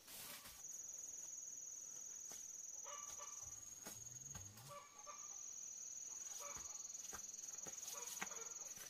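An insect trilling with a steady high-pitched buzz that breaks off briefly about five seconds in, with chickens clucking faintly.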